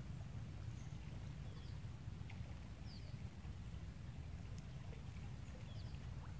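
Open-air riverbank ambience: a steady low rumble like wind on the microphone, with faint short bird chirps here and there and a thin steady high tone.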